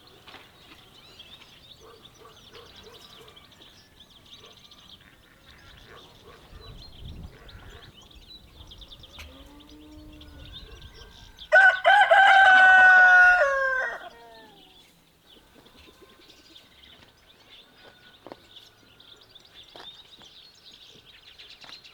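A rooster crows once about halfway through: a single loud call of about two and a half seconds, its pitch held and then dropping at the end, over faint bird chirps.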